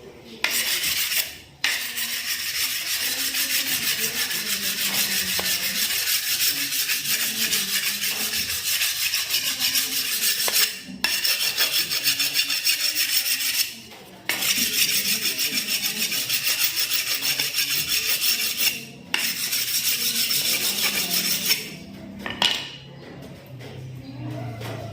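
Fast, continuous rasping strokes of an abrasive hand tool worked back and forth over a piece of material, in long runs broken by a few brief pauses.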